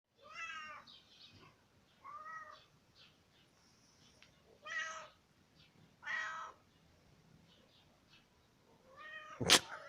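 A pet animal giving five short, high-pitched cries, each about half a second long and a second or more apart, followed near the end by a sharp, loud click.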